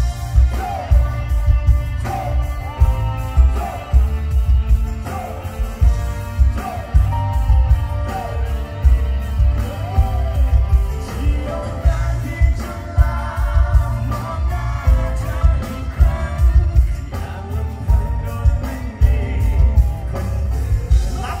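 Live band music through a concert PA, with a male singer: heavy bass, a steady drum beat and sung vocal lines.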